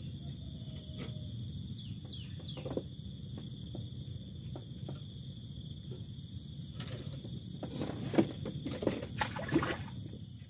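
Light clicks and knocks of fishing tackle being handled at a rod rack, rod, line and hook, growing busier and louder in the last few seconds. Under them runs a steady high insect buzz and a low rumble.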